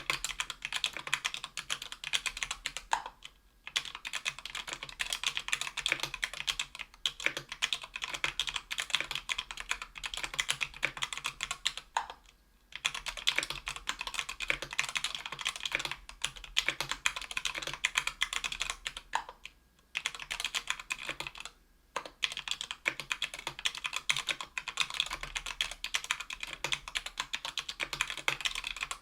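Typing on a Tofu 60% aluminium-case keyboard with stock, unlubed JWK Rara 62g tactile switches on an aluminium plate: a fast, steady run of keystrokes, broken by a few brief pauses.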